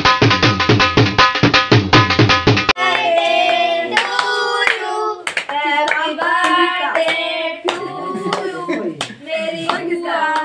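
Dance music with a fast, even drum beat that cuts off abruptly about a quarter of the way in. Then several people sing together with hand-clapping.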